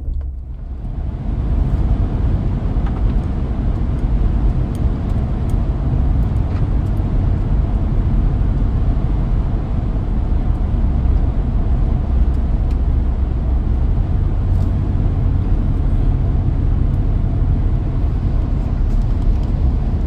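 Steady road and engine noise of a truck heard from inside the cab while driving. It is heaviest in the low rumble, grows louder over the first two seconds, then holds steady.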